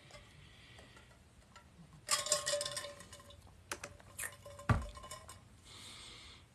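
Quiet handling of a drink bottle: a few light clicks and clinks about two seconds in, scattered ticks, and a single thump nearly five seconds in.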